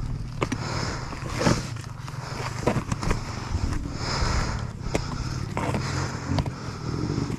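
Dirt bike engine running at low revs, with scattered scrapes, crackles and sharp knocks over it.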